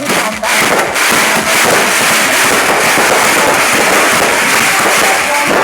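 Fireworks crackling in a rapid, continuous string of small bangs, dense and steady after the first half second.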